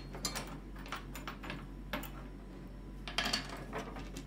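Metal ribs and plastic hinge pieces of an Emmaljunga pram canopy frame clinking and knocking as they are handled on a table: a series of short sharp clicks, with a cluster a little after three seconds in.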